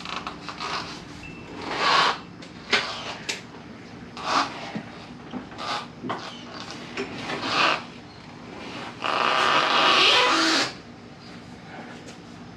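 Knocks and scrapes of objects being handled and moved, several short ones in a row, then a longer scraping or rustling sound of nearly two seconds near the end.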